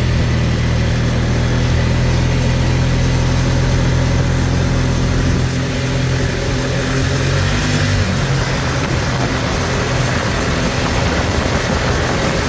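Side-by-side UTV engine running steadily as it drives along a dirt road, under constant wind and tyre noise. The engine's drone eases off about eight seconds in, leaving mostly wind and road noise.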